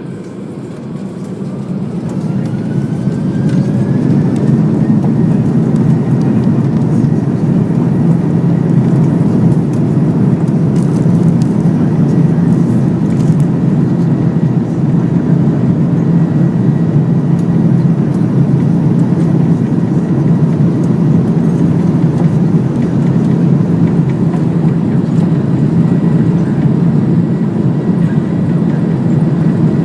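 Airbus A330 jet engines spooling up to takeoff power: the sound builds over the first few seconds with a thin whine rising in pitch, then settles into a steady, loud low rumble.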